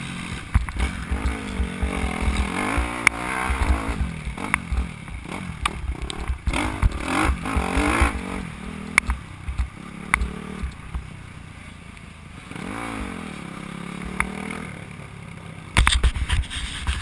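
Motocross bike engine heard on board, revving up and down as the rider works through the gears on a rough track, with heavy low buffeting and knocks from the bumps. After about ten seconds it eases off to a lower, quieter note, with one more rev rising and falling.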